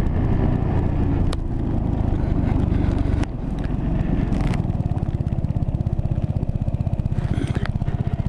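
Motorcycle engine slowing as the bike pulls off the road, then idling with an even, rapid pulse.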